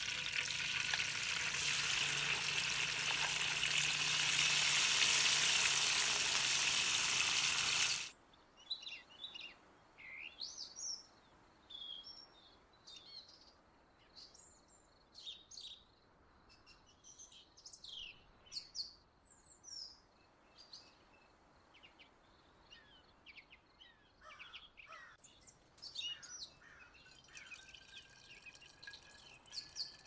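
Barberries and raisins tipped into hot oil in a steel wok, sizzling loudly for about eight seconds. The sizzle cuts off suddenly, and birdsong follows: many short chirps and whistles.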